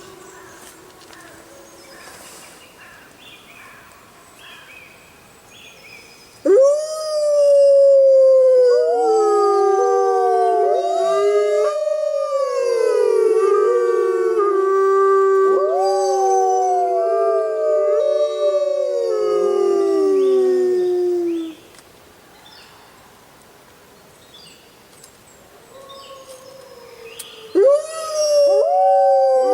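Several wolves howling in chorus: long, overlapping howls that rise and slowly fall, starting about a fifth of the way in and breaking off about two-thirds through. The howling starts again near the end, after a quieter stretch of faint short calls at the start.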